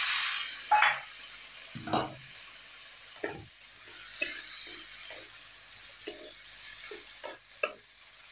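Hot water poured into a pan of spiced potatoes frying in oil, hissing loudly at the start and dying down within the first second. Then a spatula scrapes and stirs the pan in irregular strokes over a steady, quieter sizzle.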